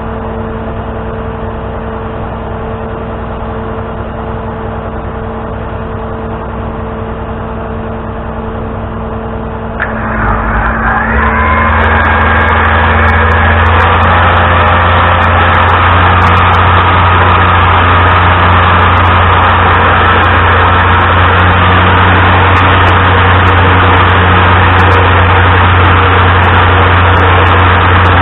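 Tow truck engine idling steadily. About ten seconds in there is a click, then the engine revs up and settles into a louder, steady run.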